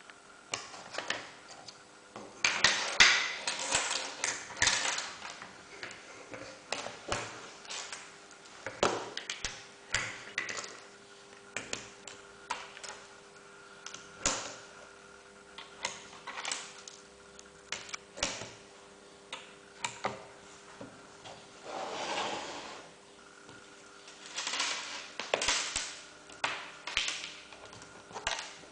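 Irregular clicks, taps and knocks of banana-plug leads being plugged in and modules handled on a tabletop, with louder clusters of clatter, over a faint steady hum.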